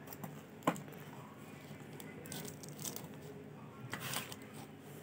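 Clear plastic film wrapped on a new router crinkling in short bursts as it is handled and turned over, with one sharp click or knock under a second in, the loudest sound.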